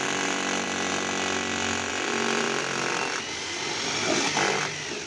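Electric drill running steadily as it drills through a thermocol (polystyrene foam) wall panel. It eases off briefly about three seconds in, picks up again, and stops abruptly at the end.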